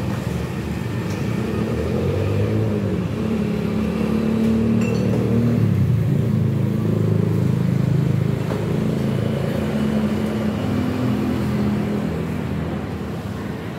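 Road traffic: a passing motor vehicle's engine hum that builds to its loudest around the middle and then eases off.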